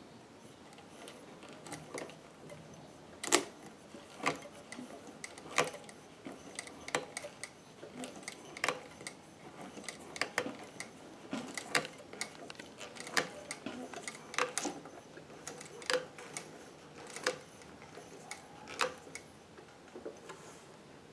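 Industrial lockstitch sewing machine cycled slowly, one stitch at a time. A coarse click comes about every second and a half as the thread take-up lever pulls the upper thread up, with fainter ticks between. The click is a sign that the upper thread is being forced upward because the machine is not in time.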